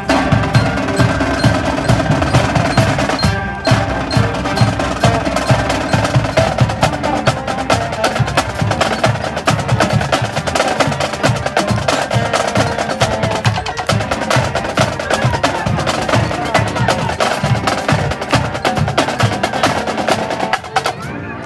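High school marching band playing a percussion-heavy passage: rapid, dense drum strokes with sustained pitched notes above them.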